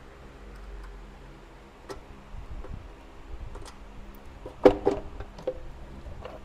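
Scattered metallic clicks and clinks of a ratchet wrench and hand tools as parts are unbolted in a car's engine bay, with the loudest clatter a little past halfway, over a steady low hum.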